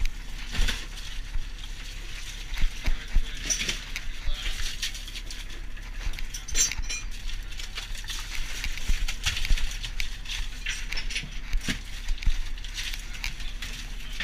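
Iced whole fish being grabbed by gloved hands from a pen of crushed ice and dropped into a canvas offloading bag: irregular wet slaps, knocks and clinks of fish and ice, over a steady low hum.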